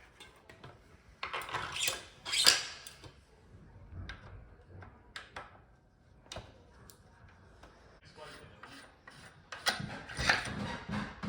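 Packaging and bike parts being handled: rubbing and scraping strokes with a few sharp clicks, the loudest stroke about two and a half seconds in, and a busier run of rubbing and soft knocks near the end.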